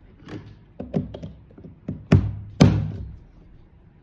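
Plug-in remote-control socket being unplugged from a wall power outlet and plugged back in: a series of plastic clicks and knocks, the two loudest about two seconds in, half a second apart.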